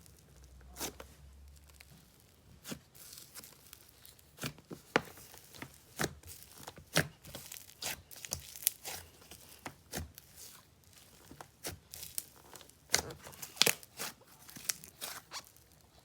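Slime being squished and poked by hand, giving irregular sharp pops and crackles, about one or two a second, with a cluster of louder pops near the end.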